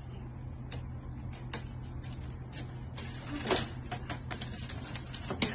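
Quiet room with a low steady hum and scattered light taps and clicks, one a little louder about three and a half seconds in.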